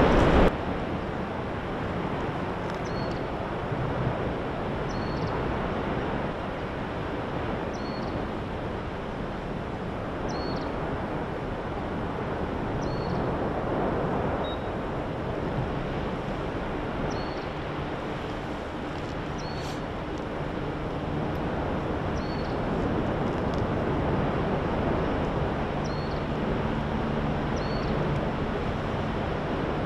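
Steady roar of the Fissure 8 lava eruption, with faint short high chirps repeating about every two to three seconds.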